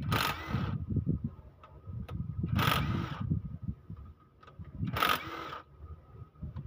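Cordless impact wrench hammering in three short bursts, each under a second and about two and a half seconds apart, as it loosens bolts on the cylinder head of a Toyota 2KD diesel engine.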